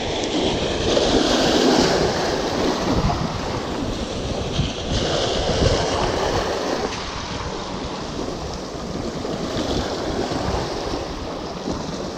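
Sea waves washing on the shore, with wind rumbling on the microphone; the wash swells and eases over a few seconds.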